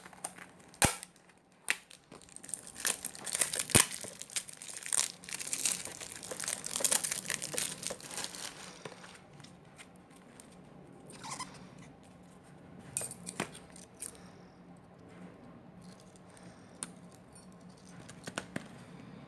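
Plastic packaging crinkling and tearing as it is unwrapped by hand, with sharp clicks mixed in. It is dense for the first eight or nine seconds, then quieter handling with occasional clicks.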